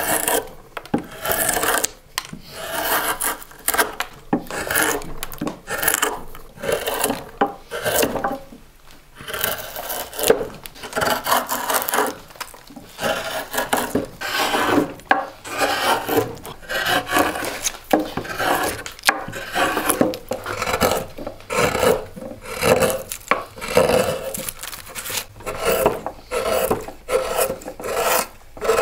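Spoon-bent carving gouge cutting into a wooden bowl blank, lifting curls of wood in a long run of scraping strokes, about one a second.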